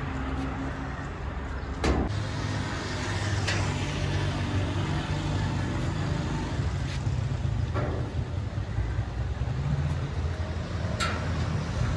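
Roadside motor traffic, with vehicle engines running steadily, and a few sharp clicks, the clearest about two seconds in and another near the end.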